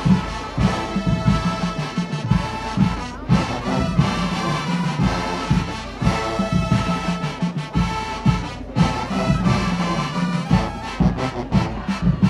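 Marching band playing: the brass section holds loud chords over drum hits, with a quick run of drum strikes near the end.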